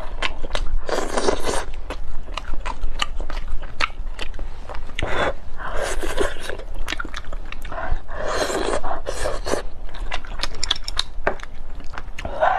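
Close-miked wet eating of a sauce-glazed chicken leg: sticky lip smacks and chewing clicks, with three louder, longer slurping stretches about one, five and eight seconds in.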